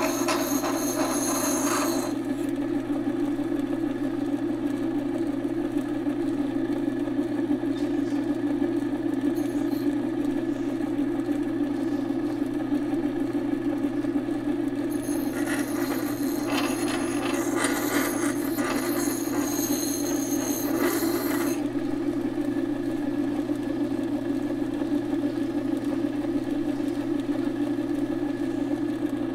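Craftsman Utility Sharpener's electric motor running with a steady hum while a steel chipper-shredder blade is ground on its wheel: a harsh grinding hiss for the first two seconds and again for about six seconds from halfway through.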